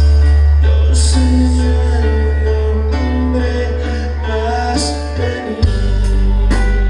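A regional Mexican band playing live through a large stage sound system, loud, with very heavy deep bass under sustained melody lines; the bass pattern changes a little past five seconds in.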